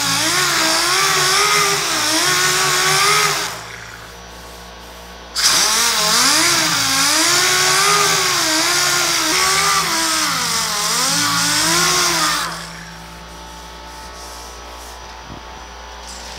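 Dual-action (DA) orbital sander with 80-grit paper sanding old paint and glazing putty off a steel truck tailgate: a whine whose pitch wavers as the pad is pressed and moved over the panel. It stops about three and a half seconds in, starts again about two seconds later, and stops for good about twelve seconds in.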